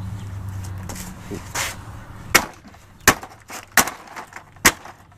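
Hammer blows striking a vacuum cleaner's housing as it is smashed apart: four sharp hits in the second half, roughly one every three-quarters of a second. A low hum fades out before the blows begin.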